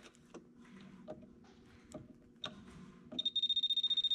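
Power Probe circuit tester's tip tapping against automotive fuses with faint clicks, then its beeper sounding a high, rapidly warbling electronic tone for about a second near the end as the tip touches a fuse.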